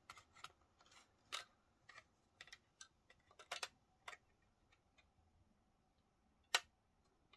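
Faint, irregular light clicks and taps of fingers handling the open Dell OptiPlex Micro PC's metal and plastic chassis and antenna wire, with one sharper click about six and a half seconds in.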